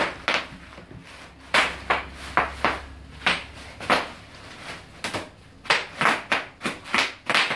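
Bubble wrap popping as it is pressed by hand and stamped on, a quick irregular series of sharp pops, about two or three a second.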